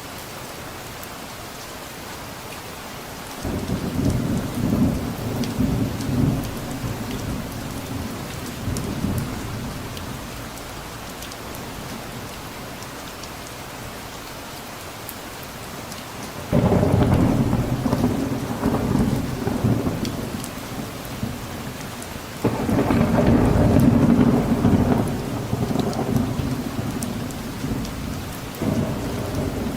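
Steady rain with four rolls of thunder. Each roll starts suddenly and dies away over several seconds: the first a few seconds in, then about midway, again a few seconds later, and one more near the end.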